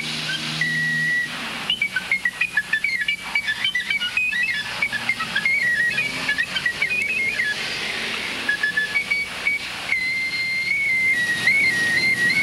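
A high whistling tone that wanders in pitch over a faint hiss. In the first half it breaks into a flurry of quick, broken notes; near the end it settles into longer held notes.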